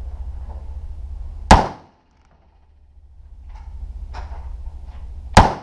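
Two single gunshots from a Colt 9mm carbine on the M4 pattern, fired semi-automatic about four seconds apart, each a sharp crack with a short echo.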